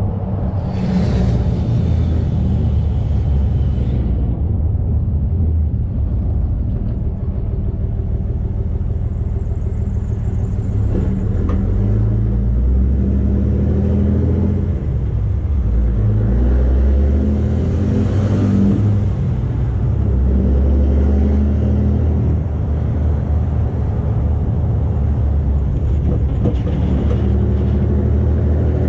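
2013 Cummins 6.7-litre inline-six turbodiesel pickup engine running under load while towing a trailer with a skid steer of about 4,000 pounds. The engine note rises and falls several times.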